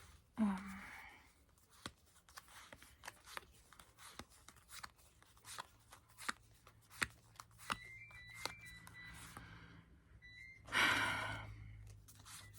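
Yu-Gi-Oh trading cards being handled and sorted one by one: light clicks and taps as cards are flipped and set down, with a louder swish just after the start and another near the end. A few brief high tones sound around the middle.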